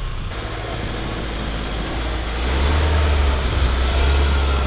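Mitsubishi Outlander's engine running under load as the crossover drives through snow, with tyre and snow noise; a low engine drone swells louder about halfway through.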